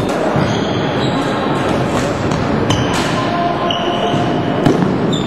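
Floorball game in play: a steady din of the hall, with sharp clicks of sticks and ball on the floor and a couple of short high squeaks.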